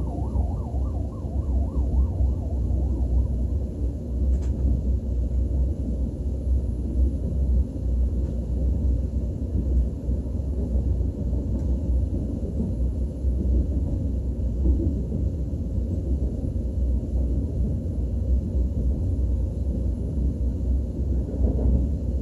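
A KTX high-speed train running, heard from inside the passenger cabin as a steady low rumble. In the first few seconds a fast, even pulsing, about five a second, rides over it and fades out.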